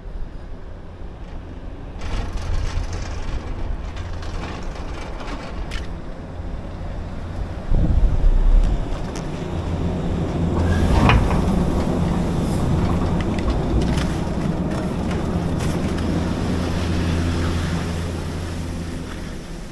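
Detachable chairlift arriving at its top station, with a steady low rumble as the chair runs in. A loud burst of clunks about eight seconds in, as the chair's grip comes off the cable and the chair rolls onto the station's tyre drive. After that comes a sharp clatter and a long rushing sound of skis sliding away on packed snow, fading near the end.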